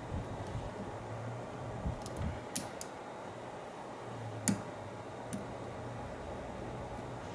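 A handful of light, sharp metallic clicks and ticks from lock-picking tools working in the keyway of an American 5200 padlock, with a steady low hum underneath.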